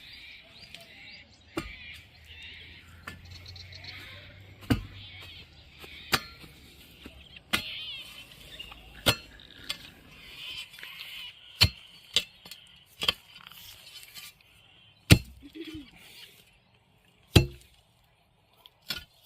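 Metal digging tool striking into soil and roots, sharp clinking knocks every second or two at an irregular pace, the two loudest near the end.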